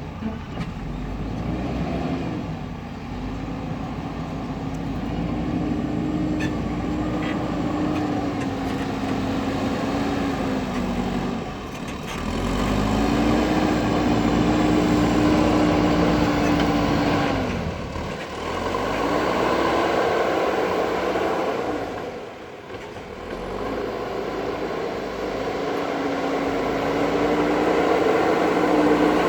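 JCB backhoe loader's diesel engine working, revving up and holding, then dropping back about four times as the machine's load and throttle change.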